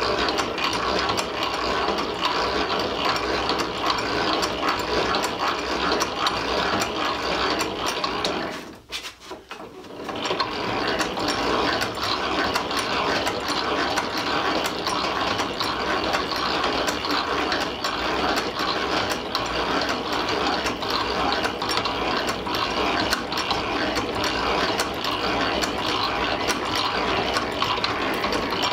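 Antique Silver Mfg Co hand-crank drill press being cranked, its gears and drive ratchet clicking rapidly as a 3/8-inch bit bores into steel rail without a pilot hole. The cranking stops briefly about nine seconds in, then picks up again.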